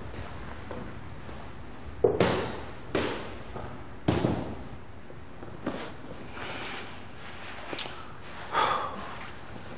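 Footsteps climbing a staircase: a few separate sharp steps roughly a second apart, the loudest about two and four seconds in, with a softer sound near the end.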